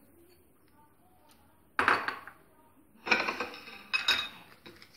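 Three short clatters of a steel spoon against glass bowls and a glass plate, each clink with a brief ring: one a little under two seconds in, then two close together around three and four seconds in.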